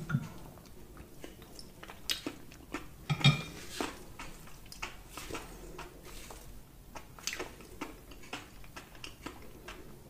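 A plastic fork scraping and clicking against a ceramic bowl and plate in a string of light, irregular knocks, the loudest about three seconds in, with some chewing between.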